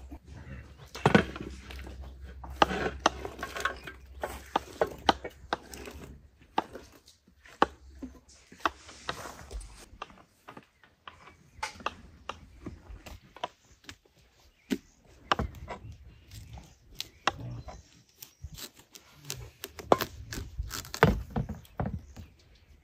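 Knife work on a wooden board while preparing fruit: irregular sharp taps and clicks of the blade, with handling noises between them.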